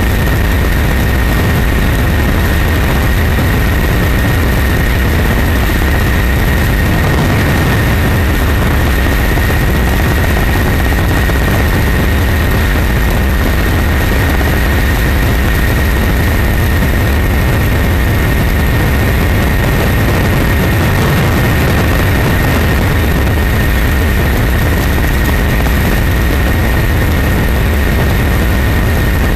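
Helicopter in flight: a loud, steady rumble of engine and rotor with a constant high whine over it.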